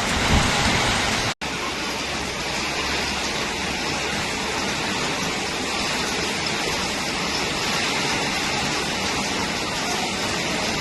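Heavy rain pouring, a steady loud hiss of water. The sound drops out for an instant about a second and a half in, then carries on unchanged.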